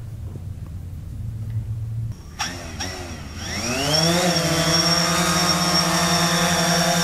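DJI quadcopter drone's motors starting a couple of seconds in, spinning up with a rising whine and then holding a steady buzzing whine with a thin high tone as it lifts off and hovers low.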